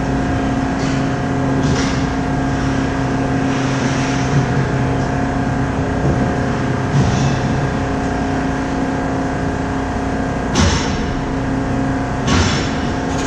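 Steady mechanical hum of an indoor ice rink, holding several constant tones. Over it come a few short hissing scrapes of skates on the ice, and two sharp knocks near the end.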